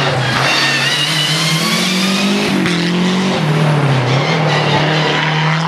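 Rally car engine running hard at high revs, its note climbing, dropping briefly about three seconds in as it changes gear, then holding fairly steady.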